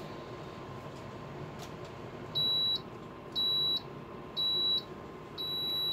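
Countertop infrared oven's timer signalling the end of its cycle: three short high-pitched beeps about a second apart, then a longer beep near the end. This is the cue that the warming time for the steak is up.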